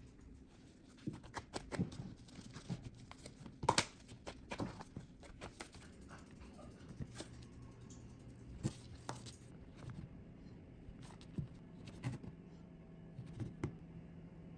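Scattered soft knocks, taps and scrapes of dough work: a wooden rolling pin pressing scone dough on a silicone baking mat, and a steel bench scraper chopping down through the dough onto the mat. The loudest knock comes a little under four seconds in.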